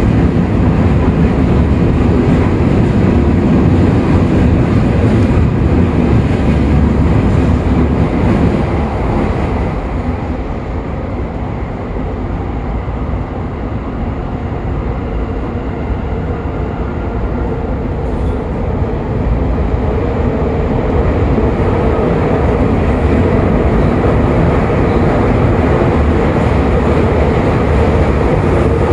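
Toei 5500 series subway train running through the tunnel, heard from inside the car: a heavy, steady rumble of wheels and running gear with the Mitsubishi full-SiC VVVF traction equipment. The rumble eases about a third of the way in, then builds again, and a steady hum comes up in the last third.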